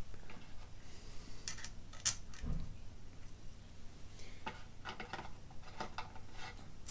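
Small metallic clicks and taps from handling a mountain bike's handlebar and stem clamp during assembly, with one sharper click about two seconds in and a low bump just after it, then a run of light clicks in the second half.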